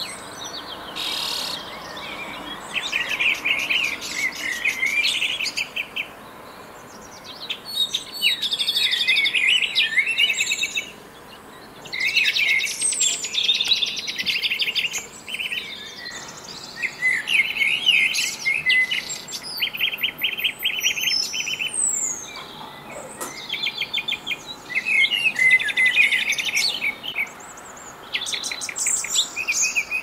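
Small songbirds singing and chirping: bursts of rapid repeated notes and trills, one phrase after another with short gaps between.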